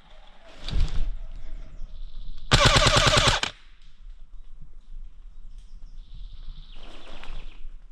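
Airsoft gun fired in a single full-auto burst of about a second, a rapid even string of shots, about two and a half seconds in. A sudden thump comes shortly before it.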